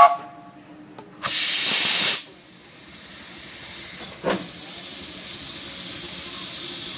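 1894 Baldwin steam locomotive venting steam with a hiss: a loud burst lasting about a second near the start, a short sharp puff a little after halfway, then a steady hiss of steam escaping at the cylinders.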